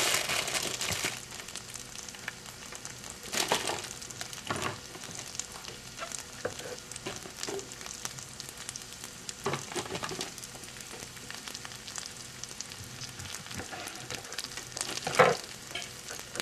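Pieces of vegan meat and sliced onion sizzling in a nonstick frying pan: a steady soft hiss, louder in the first second. A few light knocks and rustles come on top of it, the loudest near the end.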